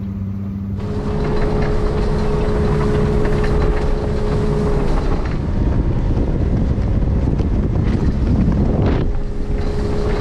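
Motorboat running under way: a steady outboard engine hum under loud wind and water rush, which comes in suddenly about a second in.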